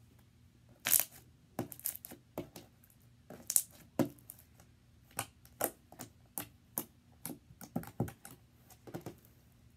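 Slime being squeezed and pressed in the hands, giving a run of sharp, irregular pops and clicks, about two a second, the loudest about a second in.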